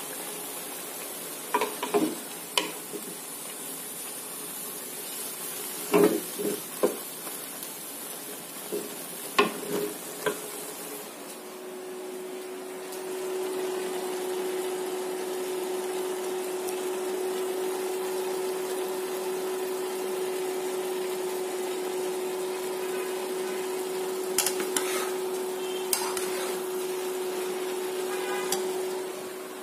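Spinach frying in a pan, with a wooden spoon knocking and scraping against the pan as it is stirred. About eleven seconds in this gives way to a pot of mixed vegetables sizzling under a steady hum, with a few knocks of a spatula against the pot near the end.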